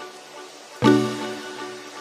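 Background music: a slow chord struck about a second in, then slowly fading, part of a pattern that repeats every two seconds or so.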